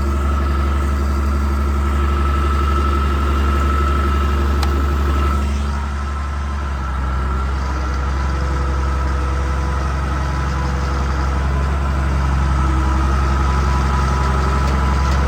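Tractor engine running steadily at low speed while backing up, its note dropping slightly about six seconds in.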